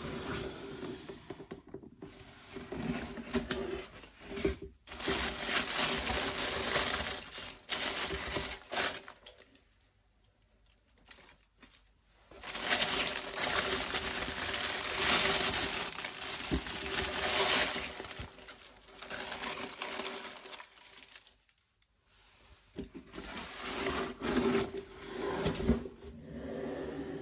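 Tissue paper rustling and crinkling as it is unfolded and pulled back by hand, in three long stretches with short quiet pauses between them.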